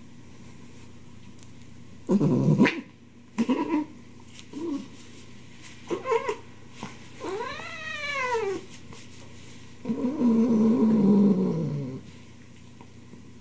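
Domestic cat meowing in a series of short calls, with one long meow that rises and falls in pitch about halfway through. Near the end comes a louder, lower, drawn-out call lasting about two seconds.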